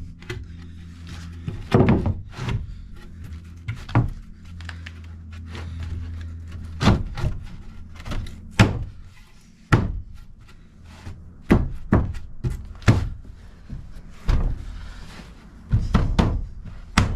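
Irregular wooden thunks and knocks, about a dozen spread over the stretch: a sheet of pressure-treated plywood being set and knocked into place in a floor opening. A low steady hum sits under the first half.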